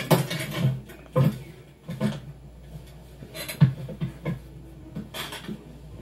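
Film sound effects without dialogue, heard through a TV speaker: a handful of soft knocks, thumps and rustles in separate clusters, the sharpest about three and a half seconds in.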